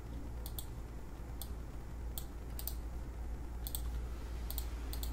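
Computer keys clicking in a slow, irregular run of single and quickly paired clicks as search keywords are typed, over a low steady hum.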